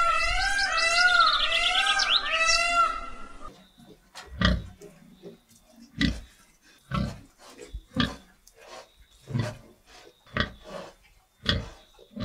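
Repeated pitched animal calls with a high twittering above them stop suddenly about three and a half seconds in. After that an animal grunts, short and low, about once a second.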